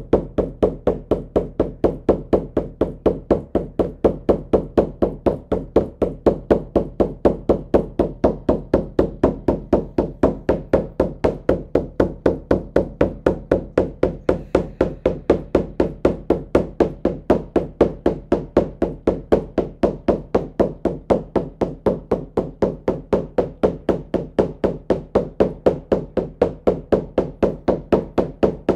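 Shamanic drum beaten in a steady, even rhythm of about four beats a second, the monotonous drumming used to carry a listener into a trance journey.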